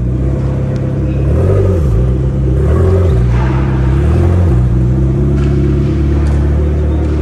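McLaren supercar's twin-turbo V8 running at low revs under light throttle as the car creeps forward, its note dipping and rising several times.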